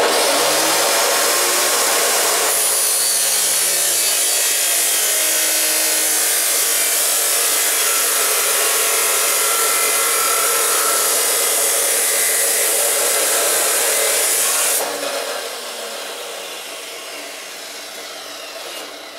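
Power tool with an abrasive cut-off wheel starting up and cutting a 45-degree angle in steel, a loud steady grinding whine. A couple of seconds in the wheel bites into the metal and the sound grows harsher. About fifteen seconds in the cut ends and the sound drops and fades away.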